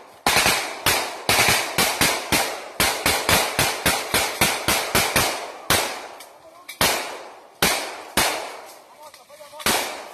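Small-arms gunfire: a rapid, irregular string of shots for about the first five and a half seconds, then single shots spaced about a second apart.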